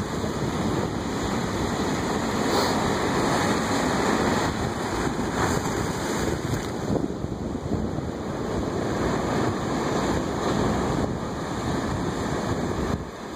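Ocean surf breaking and washing over rocks in a continuous rushing wash that swells and eases, with wind buffeting the microphone.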